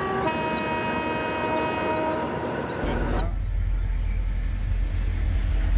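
A train horn sounding several tones at once, held for about three seconds, then cut off suddenly. A steady low rumble follows.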